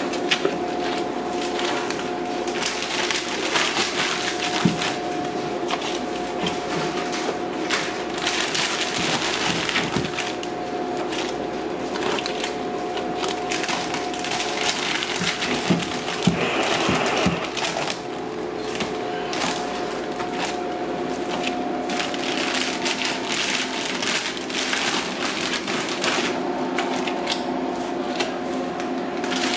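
Gloved hands kneading and crumbling blue corn masa in a plastic-lined tub: a dense, continuous crunching and rustling of dough and plastic liner. A steady machine hum runs underneath.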